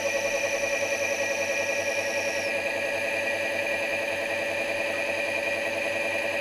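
Solectria AC motor spinning under light throttle from its drive: a steady electric whine made of several held tones while its quadrature encoder board is nudged into alignment by ear. A rhythmic pulsing in the sound evens out into a smoother whine about two seconds in, and a high tone drops out shortly after, as the encoder nears the position where the motor sounds best.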